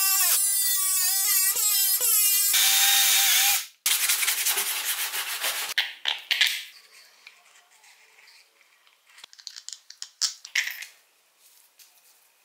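Plastic sheet scraped with a blade, squealing in a run of short pitched strokes that cut off suddenly. Then a PVC piece is rubbed on sandpaper, rasping at first, then in quieter scattered strokes.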